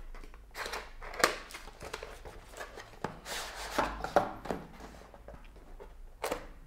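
Cardboard packaging of a computer mouse being opened by hand: a tab pulled and an inner box slid out of its sleeve, with cardboard scraping and rubbing and a few sharp taps and clicks, the sharpest about a second in, near four seconds and near the end.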